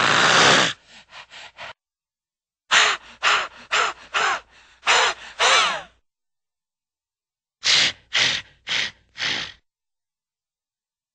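Cartoon dog sound effects played one after another with silent gaps: a longer rough sound trailing into four quick, fading barks, then a run of about seven barks, then four more barks.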